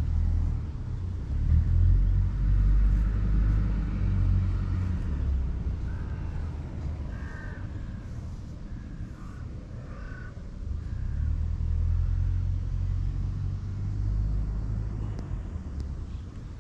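Domestic cat purring close up while being stroked: a low, steady rumble that swells and eases, loudest in two long stretches.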